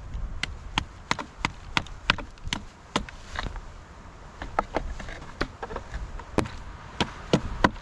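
Hammer blows on wood, splitting the sides off a branch: quick sharp knocks about three a second, a pause of about a second and a half midway, then the knocking resumes.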